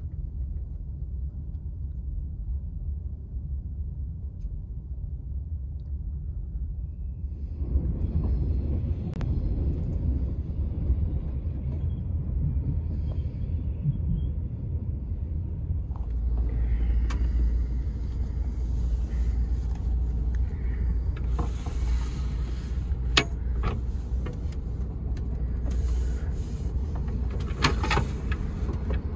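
Low, steady rumble of a TGV Euroduplex double-deck high-speed train running, heard from inside the passenger cabin. It grows louder about a quarter of the way in, and a few sharp clicks and knocks come in the second half.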